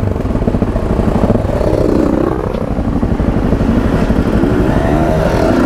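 Yamaha Ténéré 700 motorcycle engine running while riding, the revs rising and falling with the throttle. The revs dip about two seconds in, then climb again.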